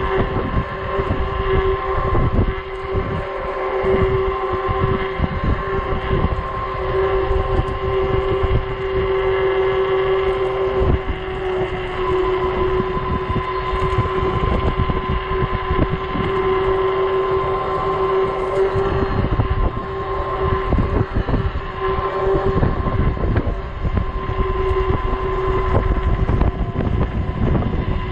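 Wind buffeting the microphone in gusts over a steady electric whine from a 48-volt fat-tire e-bike's motor running under throttle, its pitch shifting slightly about eleven seconds in.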